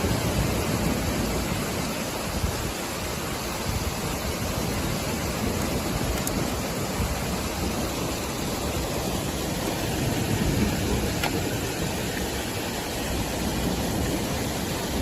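Steady, dense rushing noise of a heavy storm downpour.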